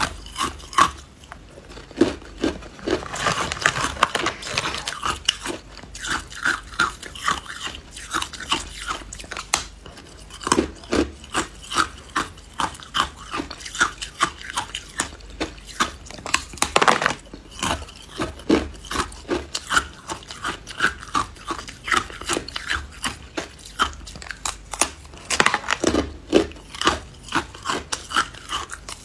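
Hard ice being bitten and chewed: a long run of crunches and cracks, often one or two a second, some in quick clusters, as a slab of ice is bitten off and ground between the teeth.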